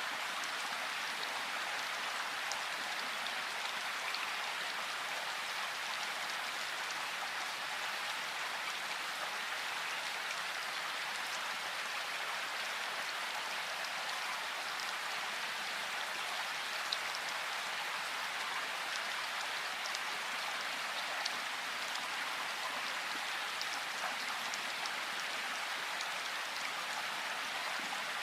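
Steady rain falling, an even hiss with an occasional sharper drop hit standing out.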